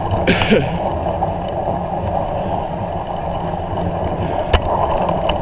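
Steady rolling noise of a Surly Long Haul Trucker touring bicycle being ridden through snow, with one sharp click about four and a half seconds in.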